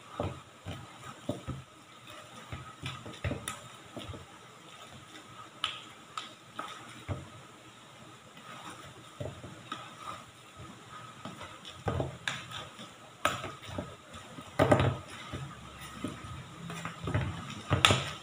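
Potato masher mashing ripe bananas in a metal pan: irregular knocks and clicks of the masher's metal blade against the pan. They come more often and louder in the last several seconds.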